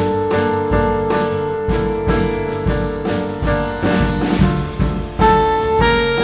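Modern jazz quartet playing: saxophone, piano, bass and drums with cymbal strokes. The saxophone holds one long note that wavers slightly before fading, and about five seconds in new melody notes begin.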